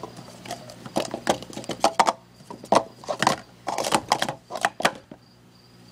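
Plastic Speed Stacks cups clacking together in quick succession as they are stacked up and down in a 3-6-3 sport-stacking sequence: a fast irregular run of sharp clicks that stops about five seconds in.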